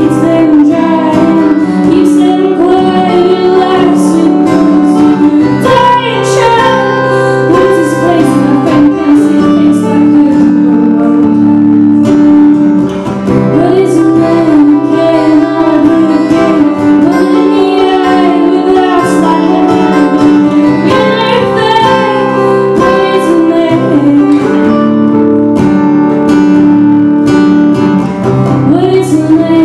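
Two acoustic guitars played together in a song, with a woman singing over them.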